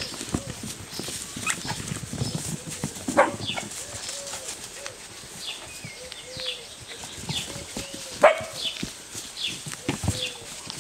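Seven-week-old Peruvian hairless puppies playing and tussling: scuffling and paw taps on the mats, with two short sharp barks, about three seconds in and again about eight seconds in.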